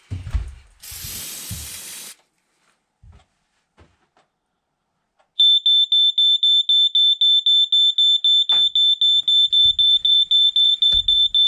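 Firex FX1218 smoke alarm's piezo horn sounding, a loud high-pitched tone in rapid even pulses that starts about five seconds in. Before it come a few knocks and a hiss about a second long.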